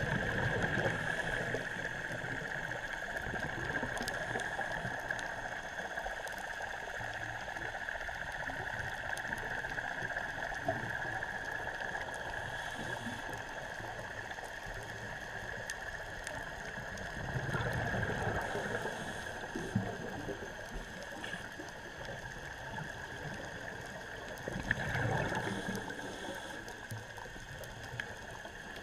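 Underwater ambience on a scuba dive: a steady hiss with faint scattered clicks, and a diver's exhaled bubbles from the regulator gurgling up in three surges, at the start, a little past halfway and near the end.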